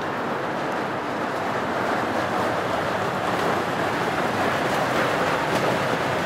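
Steady rain falling: an even hiss with faint ticks of single drops, a little louder from about two seconds in.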